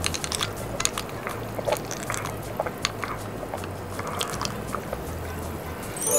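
Freshly carbonated soda water fizzing in a glass as it is sipped: a steady run of tiny, irregular crackles and ticks from bursting bubbles.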